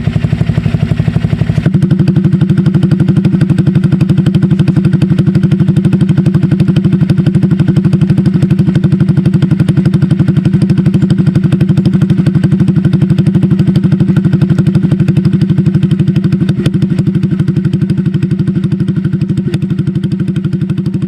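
Honda Click scooter's single-cylinder engine running steadily at idle through an aftermarket SC Project exhaust, with even, rhythmic exhaust pulses. The tone changes abruptly a little under two seconds in, then holds steady.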